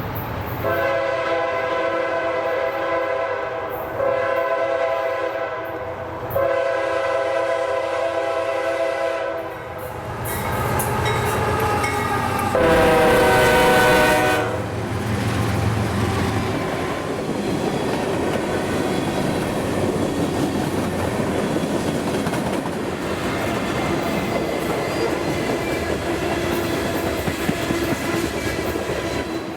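Locomotive air horn: three long chord blasts, then a fourth, louder blast that drops in pitch as the locomotive passes. It is followed by the steady rumble and clatter of the train's cars rolling by.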